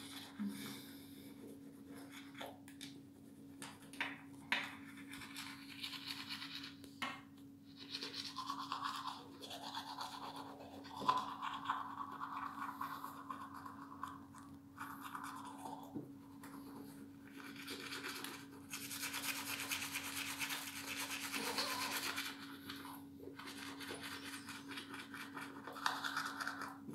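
Manual toothbrush scrubbing teeth through a mouthful of toothpaste foam, in irregular bouts of strokes with a longer, louder stretch about two-thirds of the way through. A steady low hum sits underneath.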